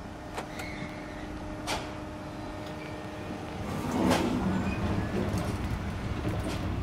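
Mechanical, machine-like sound: a steady low hum with a few sharp metallic clicks, then a louder grinding rumble swelling up about four seconds in and running on.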